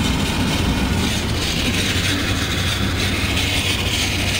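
Steady low rumble of a Ford Bronco towing a stripped lawn-tractor cart slowly along a paved road: engine hum mixed with tyre and wheel noise on the road surface. A hiss grows louder about two seconds in.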